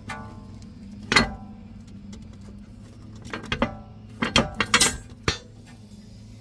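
A series of sharp metallic clanks and clinks, some ringing briefly, as the steel rear coil spring of a BMW 340i is worked out from its seat and knocks against the suspension.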